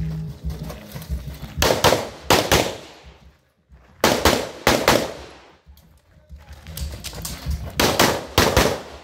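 Pistol shots fired in quick pairs, typical IPSC double taps, in three bursts with pauses of a second or more between them. Each shot ends in a short echo.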